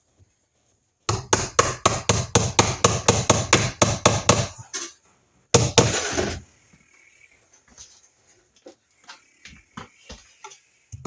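Hammer rapidly driving a nail, about four to five blows a second for some three seconds, then a brief second run of blows about a second later; the nail is only tacked part way to hold an electrical box temporarily. Faint scattered clicks of handling follow.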